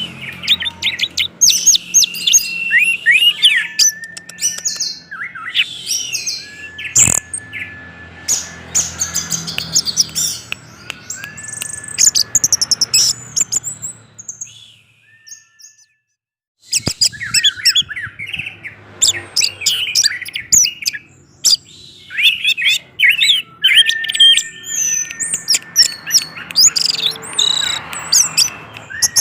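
Orange-headed thrush singing a fast, varied song of chirps, trills and held whistles, breaking off for about two seconds around halfway before resuming.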